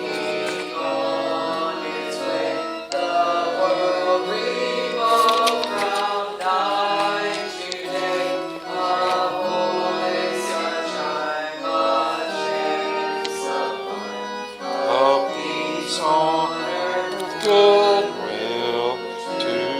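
Church music: held organ chords with a singing voice over them, the notes changing every second or so.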